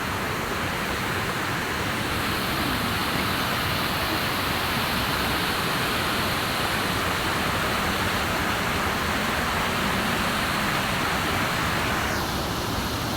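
Waterfall: steady rush of falling water, a continuous even hiss. Its upper part thins out suddenly about a second before the end.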